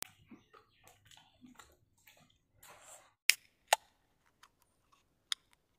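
Soft mouth and eating noises, then two sharp clicks a little past three seconds in, about half a second apart, followed by a few fainter ticks.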